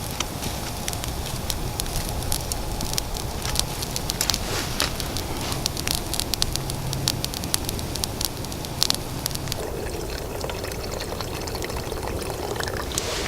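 Campfire crackling: many quick pops and clicks over a steady hiss, thinning out for a moment near the end.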